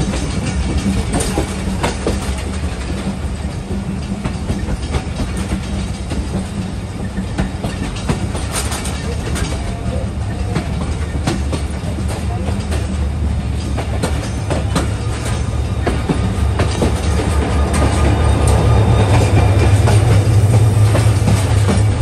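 Passenger express train running, heard from aboard: a steady rumble of wheels on the track with repeated clicks over the rail joints, and a low hum that grows louder near the end.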